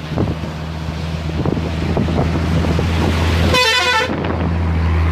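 Road traffic passing close by: a vehicle engine with a steady low drone that grows louder, and a vehicle horn blown once for about half a second around two-thirds of the way through.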